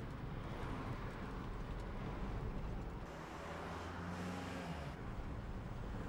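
Car driving through city traffic, heard from inside the cabin: a steady low rumble of engine and road noise.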